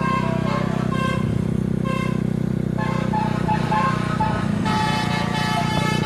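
Tour bus engine running steadily while its multi-tone telolet horn plays a tune of short notes over it, the horn growing fuller near the end.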